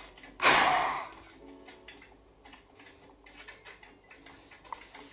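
One hard, forceful blow of breath into a handheld peak flow meter, starting about half a second in and fading within a second. Faint background music follows.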